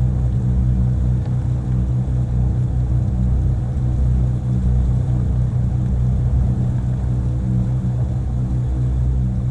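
Motorboat engine running steadily under way, a loud, even low rumble.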